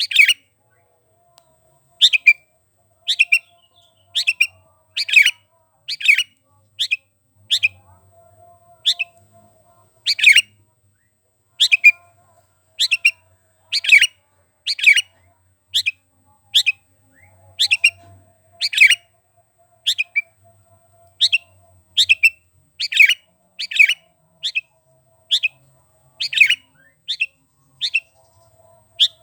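Sooty-headed bulbul (kutilang) calling vigorously: short, sharp, down-slurred chirps repeated about once a second, some in quick pairs.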